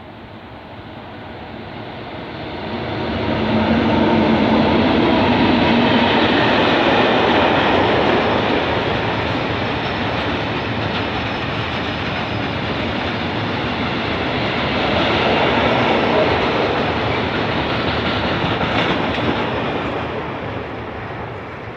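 Freight train passing behind an electric locomotive. The sound swells as the locomotive draws near about three seconds in, then settles into the steady rolling of a long line of open freight wagons, and cuts off suddenly near the end.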